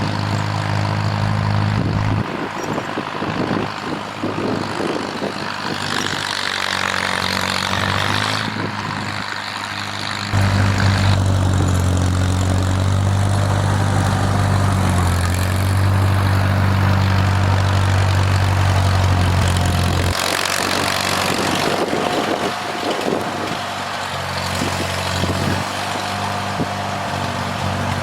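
Farmall M tractor's four-cylinder engine running steadily. It gets louder and heavier for about ten seconds in the middle of the stretch, then drops back.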